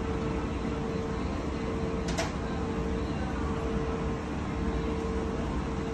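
Steady hum and rumble of café counter equipment, with one constant mid-pitched tone and a single sharp click about two seconds in.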